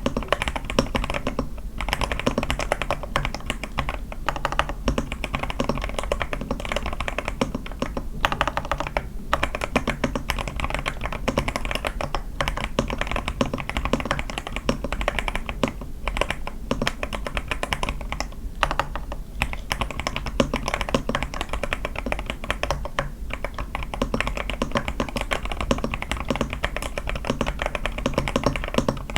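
Continuous fast typing on an A81 mechanical keyboard with lubed Sky switches, a tape mod and lubed stabilizers, with a few brief pauses between bursts of keystrokes.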